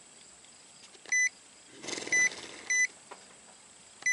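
Craftsman Professional clamp meter beeping as its buttons are pressed while zeroing the DC current reading: four short, identical high-pitched beeps, about a second apart, with a brief rustle of handling midway.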